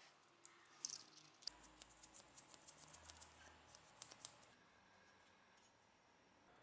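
Light, sharp metallic clicks and ticks, several a second, as the small brass burner parts of an antique gasoline blowtorch are handled and fitted together by hand. The clicking stops about two-thirds of the way through.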